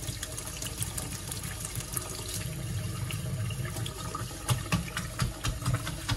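Kitchen tap running onto a paintbrush and into a stainless steel sink, the water splashing and spattering as fingers work emulsion paint out of the bristles. The splashes get sharper in the second half.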